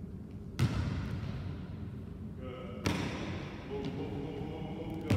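Basketball thudding on a hardwood gym floor and hoop, sharp hits roughly every two seconds, each ringing on in the echoing hall.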